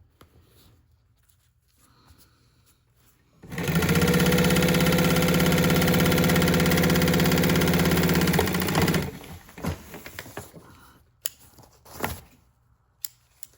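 Sewing machine running steadily for about five seconds, stitching a seam in upholstery fabric, starting and stopping abruptly. A few light clicks of handling follow.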